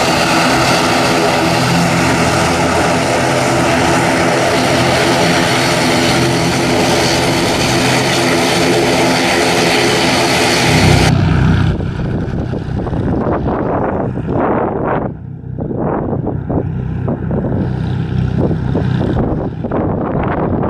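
ATR 72-600's twin Pratt & Whitney PW127 turboprops running close by, a steady drone of layered propeller tones. About eleven seconds in, the sound changes abruptly to a duller, more distant engine drone with wind buffeting the microphone as the aircraft makes its takeoff run.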